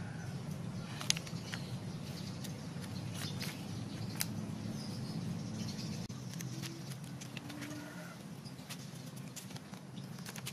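Light scattered clicks and knocks of a plastic cookie cutter pressing through chocolate oat dough on a wooden board and the cut pieces being set on a metal tray, over a steady low hum.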